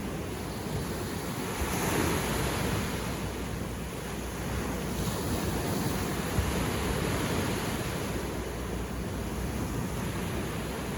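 Sea waves breaking on a beach. One wave surges up about two seconds in, followed by a steady wash of surf.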